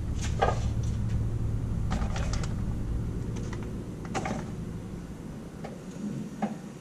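Scattered light metallic clicks and taps as a spark plug wire terminal is handled and fitted into a hand wire crimping tool, over a low steady hum that fades toward the end.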